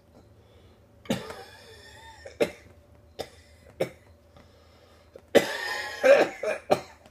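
A man coughing: one cough about a second in, a few short single coughs after it, then a longer, louder coughing fit near the end.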